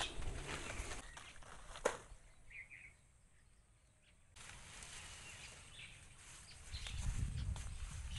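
Outdoor ambience with a sharp click about two seconds in and a couple of faint bird chirps, then, near the end, footsteps swishing through tall grass and leafy branches rustling.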